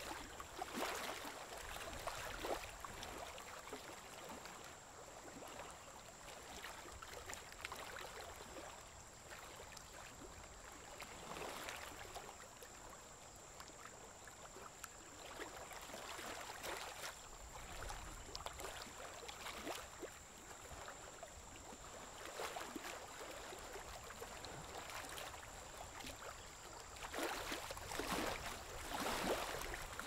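Faint outdoor ambience: a low wash of noise with a steady thin high-pitched tone over it. Brief louder swishes come every several seconds, with a cluster of them near the end.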